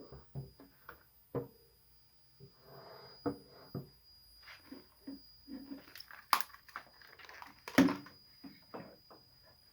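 Irregular crackles, clicks and pops, two of them much louder about six and eight seconds in, over a steady faint high-pitched whine: the strange noise coming out of an Audient iD22 audio interface.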